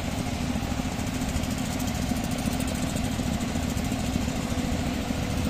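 An engine running steadily at an even speed: a constant low hum with a rapid, even pulse.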